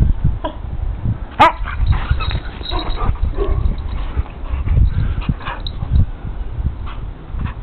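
Siberian huskies vocalizing while play-fighting: a sharp rising yelp about a second and a half in, then a string of short whines and yips.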